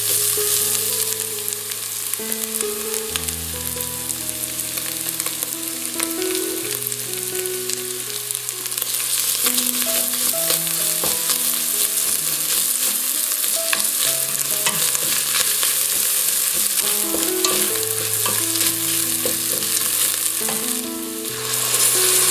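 Chopped vegetables, minced meat and rice sizzling as they fry in a stainless steel pot, stirred and scraped with a wooden spoon while tomato paste roasts in with them.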